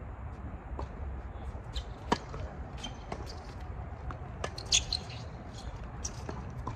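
Tennis rally on a hard court: sharp pops of racket strings striking the ball, the loudest about two seconds in and just under five seconds in, among fainter ball bounces and footfalls. A steady low rumble runs underneath.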